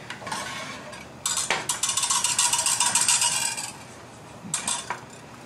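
Metal kitchen utensils clattering and rattling in a drawer as it is rummaged through. The clatter starts about a second in and lasts about two and a half seconds, with a few lighter clinks near the end.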